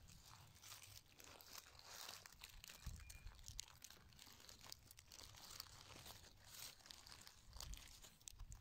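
Faint crackling and rustling of dry fallen leaves and forest litter as fingers dig and pull them aside to uncover a mushroom, with many small irregular clicks.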